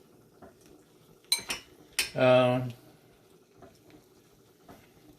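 A few sharp clinks of a metal utensil against a cooking pot: a couple a little over a second in, and a louder clank near the end.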